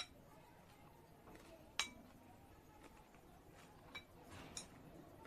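Cutlery clinking against a dish a few times, short sharp clinks with a brief ring, the loudest about two seconds in, over otherwise quiet.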